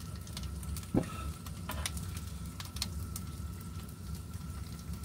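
Asparagus sizzling in olive oil in a frying pan on a gas camp stove, with scattered small crackles over the burner's steady low rumble. One louder knock about a second in.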